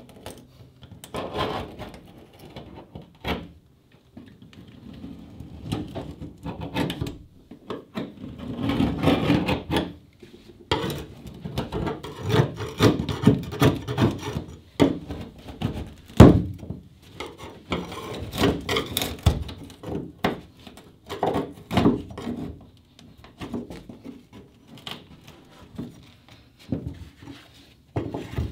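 Steel scraper and chisel working under the edge of a sealant-bedded plywood seacock backer board on a fiberglass hull, in irregular runs of scraping strokes. A sharp knock about sixteen seconds in is the loudest sound.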